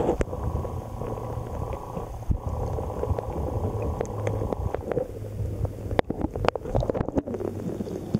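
Muffled water rumble and sloshing picked up by a camera held underwater, with a faint steady hum. From about six seconds in come a run of sharp knocks and clicks as the camera housing is moved about in the water.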